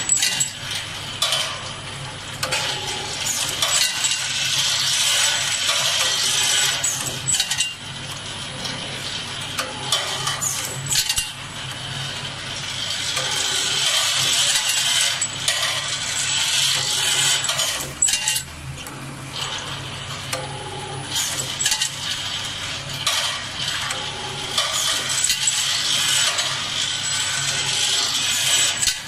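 Two-spindle CNC thread tapping machine running as it taps drop-in anchor sleeves: a steady machine hum and hiss that swells and eases, with frequent metallic clinks of the steel parts.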